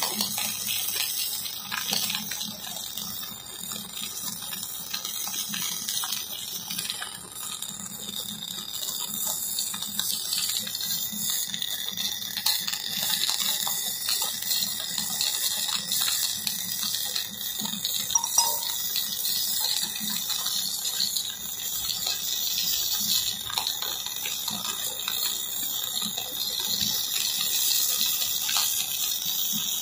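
Electric arc welding on a pipe fitting: the arc gives a steady hiss with scattered crackles.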